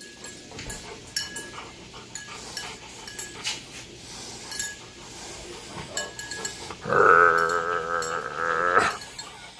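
Siberian husky puppy mouthing a hand in play, with small clicks and scuffles. About seven seconds in it gives a loud, wavering, drawn-out vocal call that lasts about two seconds.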